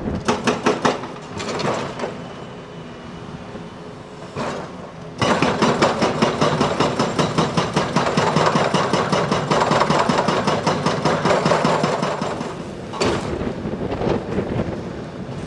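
Hydraulic breaker on a Volvo EC380DL excavator hammering rock in rapid blows. It starts with two short bursts, then runs without a break for about eight seconds from about five seconds in, and gives one more short burst near the end. Between bursts the excavator's engine hums steadily.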